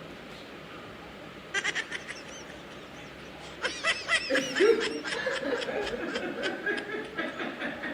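Bursts of laughter: a short one about a second and a half in, then a longer, continuous stretch from about three and a half seconds in.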